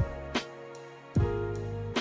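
Background music: held keyboard chords over a deep drum beat with a few sharp hits.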